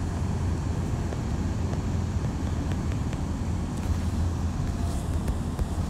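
Steady low background rumble with no change in level, and a few faint small clicks.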